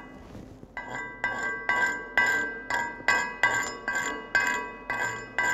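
Chipping hammer striking a steel welding test plate about twice a second, knocking slag off a stick-weld bead; each blow rings like a bell. The blows start after a short pause, under a second in.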